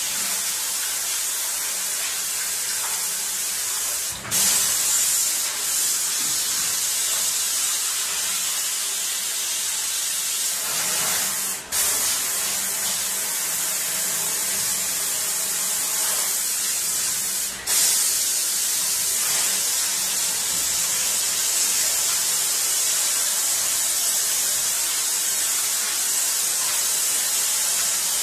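Water hissing steadily from a hand-held sink spray nozzle onto a gum-oil print on a stainless steel sink, washing excess oil ink off the print. The spray breaks off very briefly three times.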